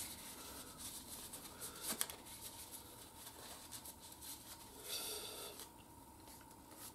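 Faint handling of small metal and plastic motorcycle parts and tools on a workbench: scattered light clicks, a sharper one about two seconds in, and a brief scratchy rustle about five seconds in.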